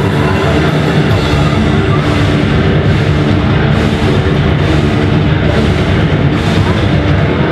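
Loud live heavy rock band playing: distorted electric guitars over a pounding drum kit and bass, dense and unbroken.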